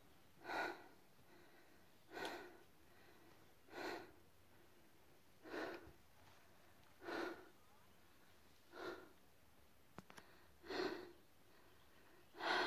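A hiker breathing hard while climbing a steep trail, with a short breath out about every second and a half, eight in all.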